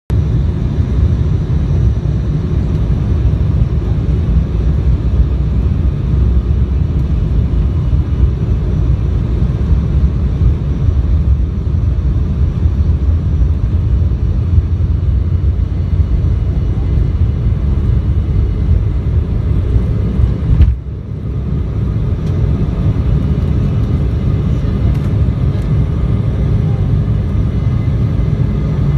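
Steady low rumble of an airliner during its takeoff, with a sudden brief drop in level about two-thirds through.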